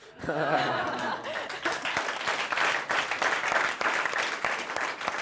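Audience applause, with a burst of laughing voices in the first second, then dense clapping that goes on steadily.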